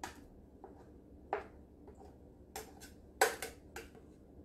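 A few short, light clinks and knocks of kitchenware as a bowl of thick chocolate fudge icing is tipped and poured over a sheet cake. The loudest comes a little after three seconds.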